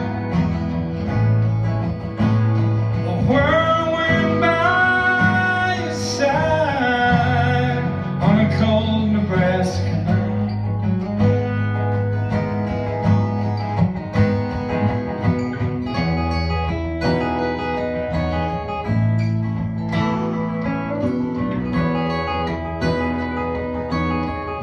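Live country band playing an instrumental break between verses: acoustic guitars strumming and picking over an electric bass guitar. A held melody line bends up and down over the first ten seconds, then gives way to busy acoustic guitar picking.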